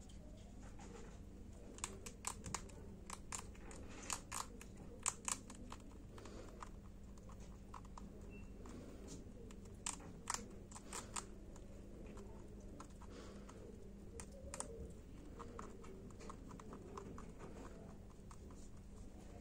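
Young rabbit crunching small dry treat pieces held in fingers: several bursts of quick, sharp crunches.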